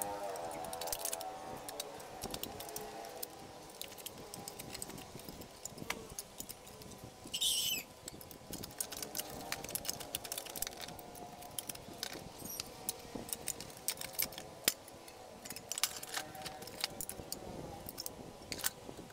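Scattered light clicks and knocks of a rice cooker's shell and parts being handled and turned over, with one brief louder rasp a little past seven seconds in.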